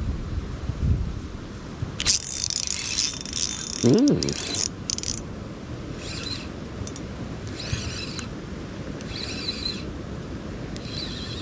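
Spinning reel at work during a fish fight: a continuous high-pitched run about three seconds long, then four short bursts of cranking about a second and a half apart. A short rising sound comes near the middle of the run.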